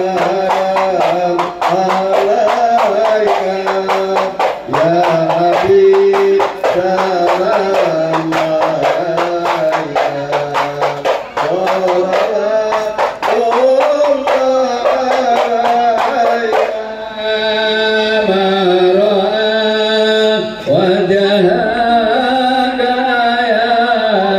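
Music with singing over fast hand-drum strokes. About 17 seconds in, the drumming thins out and long held melody lines take over.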